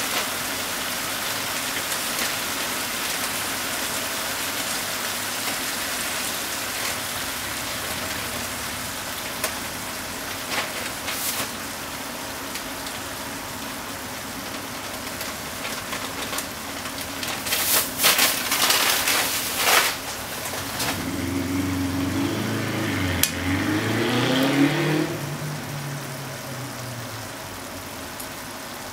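Chicken and vegetables sizzling in a frying pan, a steady hiss. About two-thirds of the way through comes a short run of clicks and clatter, then a low hum that rises and falls in pitch for a few seconds.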